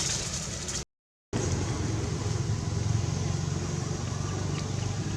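A steady low rumble like a motor vehicle's engine running, broken by a sudden drop to silence for about half a second near the start.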